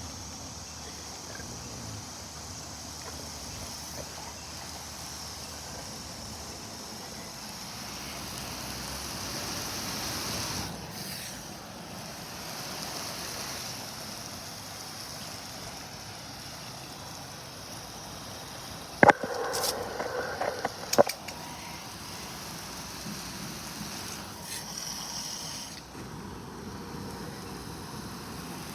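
A steady wash of water and wind noise, swelling briefly about a third of the way through, broken by a short loud burst with sharp knocks about two-thirds through.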